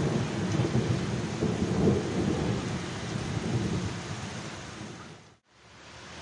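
Thunder rumbling over heavy rain, swelling twice and then dying away over about five seconds. The sound cuts out for a moment near the end and comes back as a steady hiss of rain.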